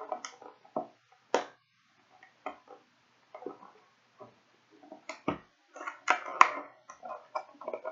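Plastic pie container being handled: an irregular run of clicks, taps and crinkles, busiest around two-thirds of the way through.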